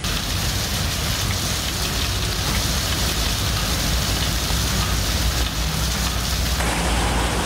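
Heavy rain pouring steadily, a dense, even hiss of falling drops with a low rumble underneath; the sound shifts in character near the end.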